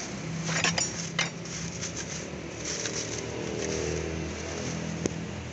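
Plastic wrapping crackles and metal tools clink as a replacement steering column is handled, with a quick cluster of clicks in the first second and one sharp click near the end. A vehicle engine hums steadily underneath.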